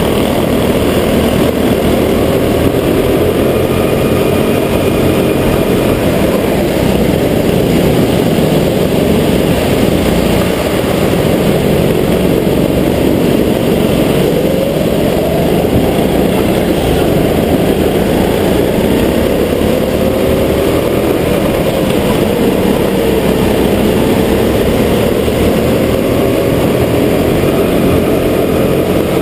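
Go-kart engine running loud close to the microphone, its pitch rising and falling as the kart speeds up and lets off through the corners.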